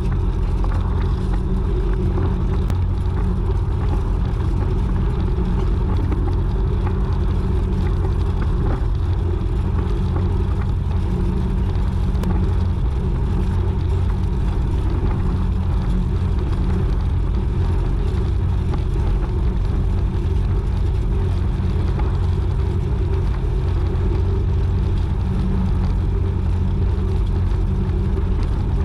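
YuMZ-6 tractor's four-cylinder diesel engine running steadily with a deep, even rumble, working in the field while pulling a hay rake set up as a tedder.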